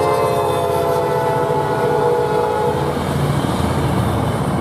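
Tri-Rail commuter train's air horn sounding one long blast as the F40PH-3C locomotive passes, its pitch sagging slightly before it fades about three seconds in. Under it runs the low rumble and clickety-clack of the train's wheels on the rails.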